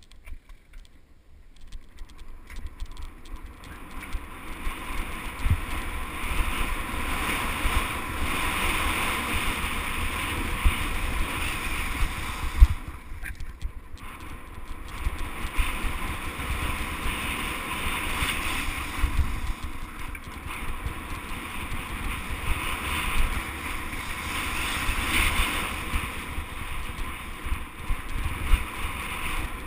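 Mountain bike rolling fast down a dirt trail: knobby tyres running over dirt and wind buffeting the microphone, growing louder over the first few seconds as it picks up speed. A sharp knock from a bump about twelve and a half seconds in, followed by a brief lull.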